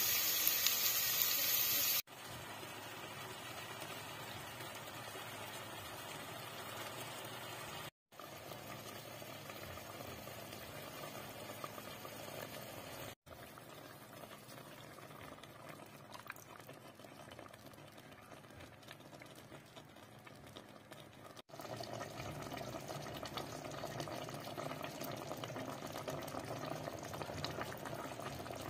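Garlic, onions and ginger sizzling in oil in a pan, cutting off after about two seconds. After that, quieter cooking noise from the pot, and in the last seven seconds chicken pieces simmering in tomato sauce with a steady bubbling.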